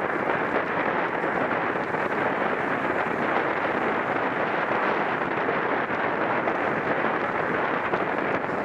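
Steady rush of wind buffeting the microphone of a camera carried at racing speed in a bicycle criterium.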